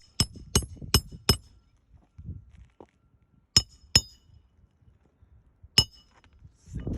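Hammer striking metal on a shingle roof, sharp ringing clinks. Four quick strikes come in the first second and a half, two more about halfway through and one near the end.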